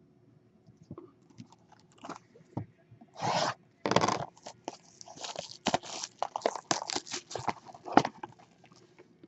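Trading cards and their packaging being handled: irregular rustling, crinkling and scraping, with a few longer bursts.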